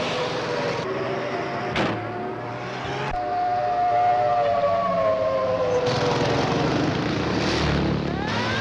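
Civil defence air raid sirens sounding the warning, several at once at slightly different pitches, their tone sliding slowly downward. About three seconds in the sound cuts abruptly to a fresh, higher siren tone that again falls away, and near the end a siren begins to wind back up.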